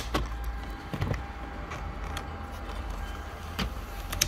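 Cables and connectors being unclipped from a car door panel by hand: several short plastic clicks and knocks, the strongest about a second in, over a steady low hum.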